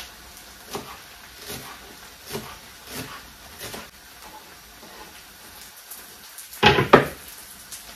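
Kitchen knife chopping Chinese chives on a wooden cutting board, a handful of spaced strokes, followed by a louder short clatter near the end as the board is handled over the frying pan.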